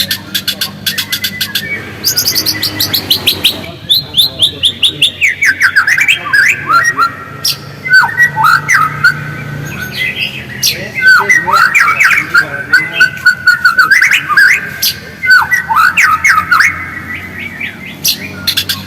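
White-rumped shama (murai batu) singing a fast, varied song of rapid repeated chirps and short trills. One run of notes falls steadily in pitch about two seconds in.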